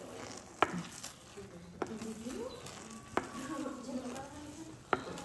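Metal tongs clinking against the rim of a large stockpot as cooked chicken pieces are lifted out of the broth: four sharp clicks about a second and a half apart, over a low steady hiss.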